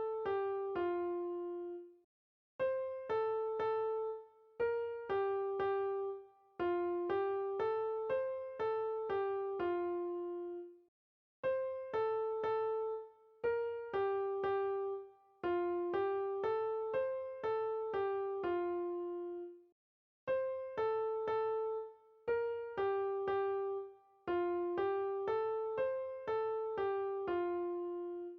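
Background music: a gentle piano-like keyboard melody looping one short phrase of notes, with a brief pause about every nine seconds.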